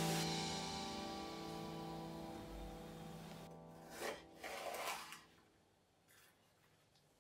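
A held chord of background music fading out. About four seconds in, a chef's knife cuts through a red pepper onto a wooden chopping board: a short crunch, then a longer slicing cut.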